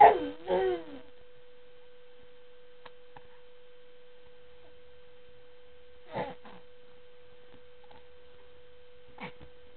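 A baby's short, high-pitched vocal sounds with bending pitch: a double one at the start, then single brief ones about six and nine seconds in. A steady electrical hum runs underneath.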